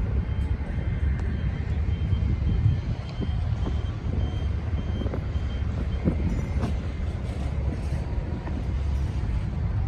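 Steady low rumble of city traffic, with a high electronic beep repeating about twice a second for the first six seconds, typical of a vehicle's reversing alarm.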